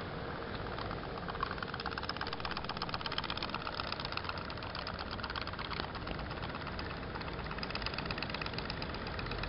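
Toy pop-pop steam boat's engine putt-putting as it pushes the boat along: a rapid, even stream of ticks, many a second.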